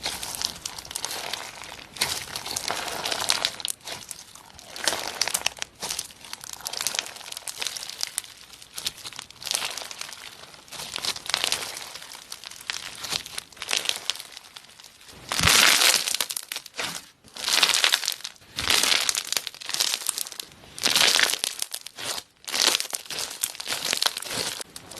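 Slime being squeezed and worked by hand, giving crinkly, crackling sounds in irregular bursts. The bursts get louder from a little past halfway.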